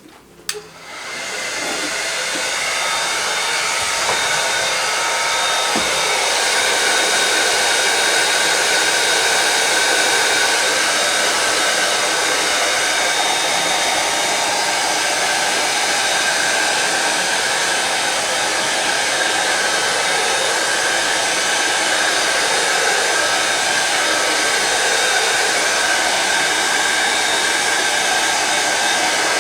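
Heat gun switched on about half a second in, then running with a steady blowing hiss and a faint whine, shrinking MonoKote covering film tight on a balsa wing.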